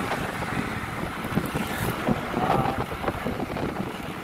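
Wind buffeting the microphone while riding along a road, with a low, uneven rumble from the ride.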